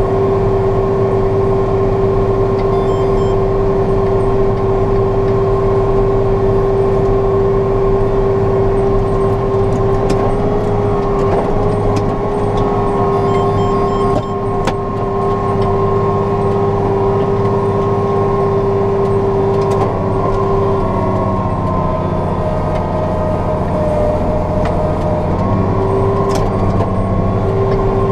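John Deere 6115M tractor running steadily under load while pulling a PTO-driven lime spreader, heard from inside the cab, with a steady whine over the engine hum. The whine drops out and the pitch shifts for a few seconds near the end, then the whine comes back.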